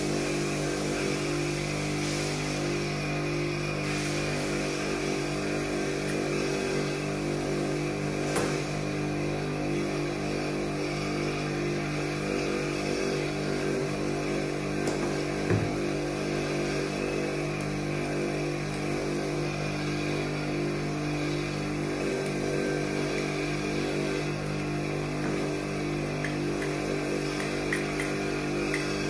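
Steady mechanical droning hum of a running motor, even in level and pitch throughout. A few faint knocks as the metal engine parts are handled, the clearest about halfway through.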